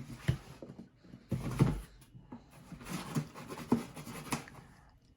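Hands handling a keyboard's packaging box: irregular knocks, scrapes and rustles, loudest about one and a half seconds in.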